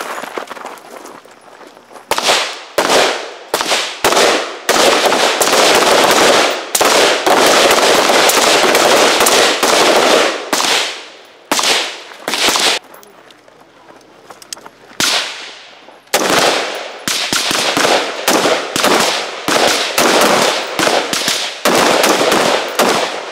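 Rifle fire from several shooters at once, the shots overlapping into a dense volley. The firing thins and stops for a few seconds about halfway through, then resumes as a rapid run of separate shots.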